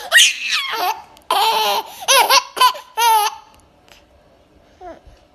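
A baby laughing in several short high-pitched bursts, the pitch wavering within each, stopping about three and a half seconds in.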